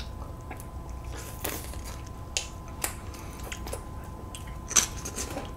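Eating sounds: a few scattered crisp crunches and clicks from chewing crunchy kimchi and chopsticks tapping dishes.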